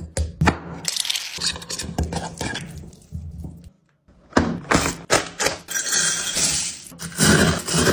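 Dry food tipped into a glass bowl: flour sprinkled in with light taps and a soft hiss, then after a brief silence about four seconds in, cornflakes poured from a box, pattering and rattling densely against the glass.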